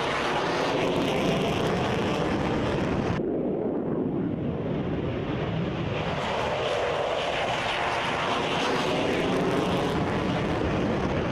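An F-16's single turbofan jet engine running loud and steady at high power. About three seconds in, the high hiss drops away suddenly, and it comes back a few seconds later.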